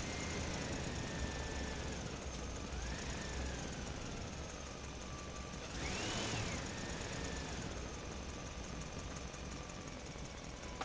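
A small electric motor whining, its pitch wavering up and down and briefly rising about six seconds in, over a low rumble.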